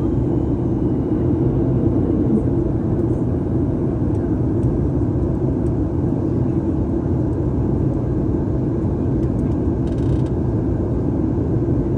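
Steady low drone inside the passenger cabin of a Boeing 737 airliner in flight, engine and airflow noise.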